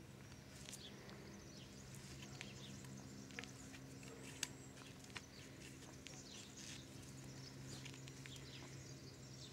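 Near silence: faint outdoor ambience with a few short, high chirps and several soft, sharp clicks over a steady low hum.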